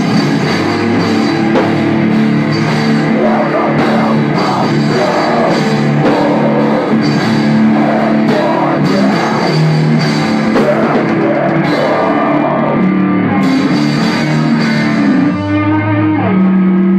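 Heavy rock band playing live: distorted electric guitar and bass guitar chords over a drum kit, loud and steady, with the riff changing near the end.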